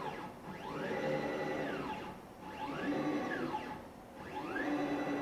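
Home-built CNC router's Y-axis driven by an old surplus stepper motor, making repeated moves. On each move its whine rises in pitch as it accelerates, holds level at full speed, then falls as it decelerates, about every two seconds. The moves are slow, showing the old motor's poor performance.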